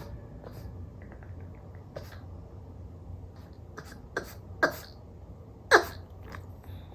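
Boston terrier giving short, sharp barks, three of them from about four seconds in, the last the loudest: a demand to be let out.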